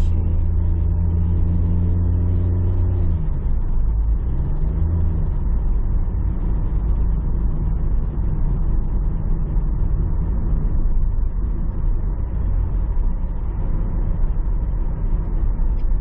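A car being driven: a steady engine hum over road rumble. About three seconds in, the engine note falls in pitch and fades, leaving mostly a low road and tyre rumble.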